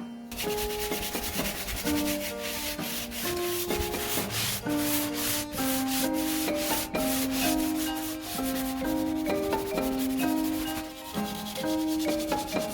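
Sandpaper rubbing over pine boards in repeated strokes, under background music of a slow melody of held notes.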